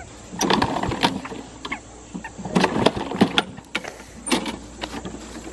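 Walk-behind push mower being pull-started, its recoil starter cord yanked repeatedly in short rattling pulls while the engine turns over without catching: the mower will not start.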